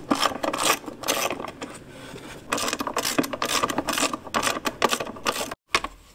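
Socket ratchet clicking in quick runs while backing out 10 mm bolts that hold a motorcycle's rear fender. There is a short lull about two seconds in, and the clicking stops shortly before the end.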